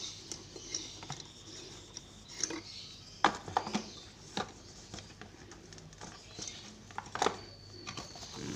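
Handling noise of plastic LED bulbs: one is unscrewed from a lamp socket and set into its cardboard box, with a series of sharp clicks and taps as the bulbs knock against each other and the cardboard.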